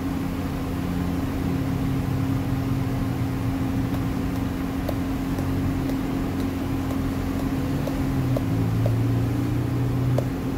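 Steady machine hum in a kitchen, holding one low tone with a lower rumble under it, and a few faint light clicks over the top.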